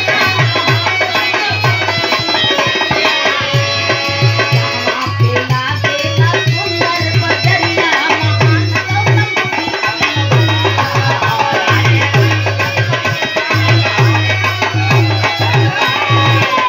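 Live Indian folk music: a dholak, a two-headed barrel drum played by hand, keeps a steady rhythm of deep strokes under a melody.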